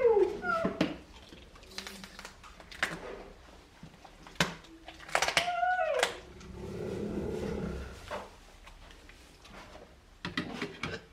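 Cheetah giving short calls that fall in pitch, once at the start and again about five and a half seconds in, with scattered sharp clicks in between. A steady low rumble follows for about a second and a half, while its back is being stroked.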